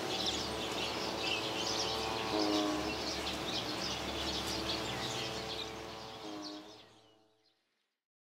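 Outdoor ambience of small birds chirping and twittering, over a low rumble and several held tones that shift pitch twice. Everything fades out about seven seconds in.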